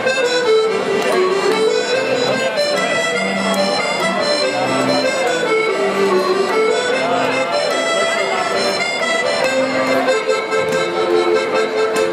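Accordion playing a traditional tune over a bass line that alternates between two low notes, with light percussion ticks.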